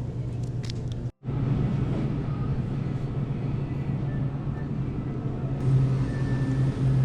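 Pickup truck driving, a steady low engine and road drone, with a sudden cut to silence about a second in.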